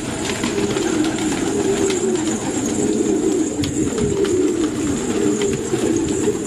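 A flock of domestic fancy pigeons cooing together: many low, overlapping coos that run on without a break.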